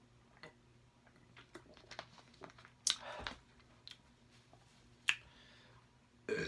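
Close-miked mouth sounds of eating and drinking: scattered wet clicks and smacks between quieter chewing, with a loud smack about three seconds in and another about five seconds in.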